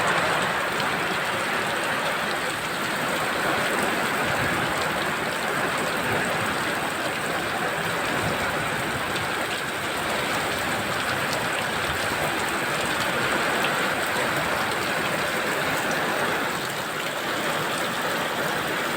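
Heavy rain falling steadily: a dense, even hiss of a downpour that holds at the same level throughout.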